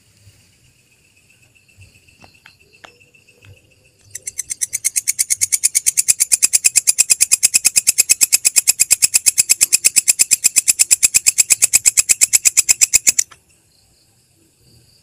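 Belalang kecek katydid calling: a long, fast, even train of loud, shrill pulses that swells up about four seconds in and cuts off suddenly near the end. It is preceded by a few faint, scattered chirps.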